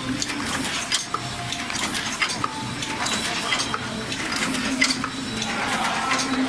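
Gear-box paper cup making machine running at about 50 cups a minute: a steady clatter of mechanical clicks and knocks over a low hum, with a sharper click repeating about every second and a quarter.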